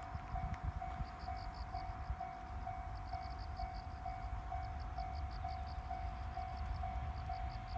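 Railway level-crossing warning bell ringing steadily at about two dings a second, with insects chirping in short pulsing trills and a low rumble underneath.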